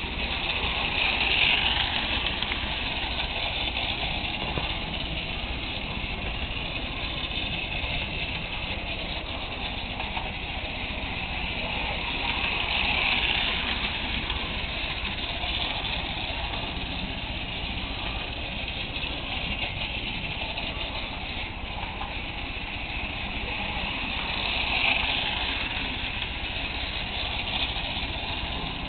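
Toy electric train running on tinplate track: a steady motor whir and wheel rumble over a low hum, swelling about every twelve seconds.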